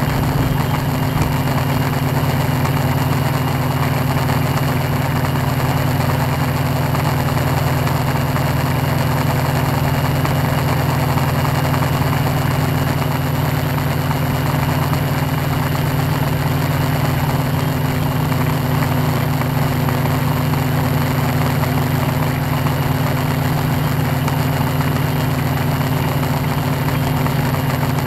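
Tarot 680 Pro hexacopter's electric motors and propellers giving a steady, even hum, picked up by the camera mounted on the drone.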